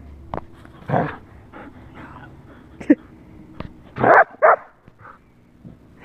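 A dog barking: one woof about a second in, then two loud barks close together about four seconds in.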